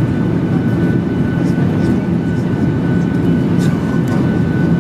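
Steady cabin noise inside a Boeing 737-800 on approach: a dense low rumble of its CFM56 engines and airflow, with a thin steady whine above it and a few faint clicks.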